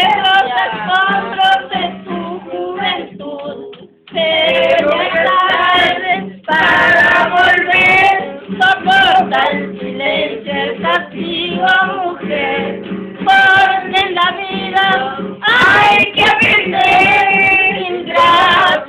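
A woman singing a melody over a steady musical backing; the sound drops out briefly about four seconds in and again about six and a half seconds in.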